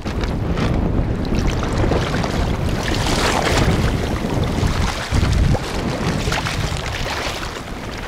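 Shallow seawater splashing and churning as a gill net full of flounder is dragged through it by a person wading in waders, with wind buffeting the microphone.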